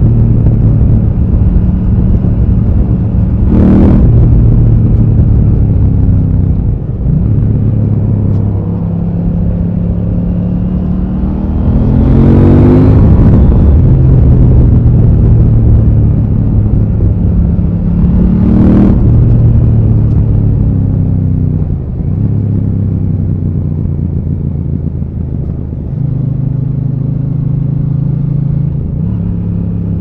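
KTM 890 Duke R's parallel-twin engine pulling along on the road, its note rising and falling as the throttle is opened and closed and it goes through the gears. There are short sharp blips about 4 and 19 seconds in.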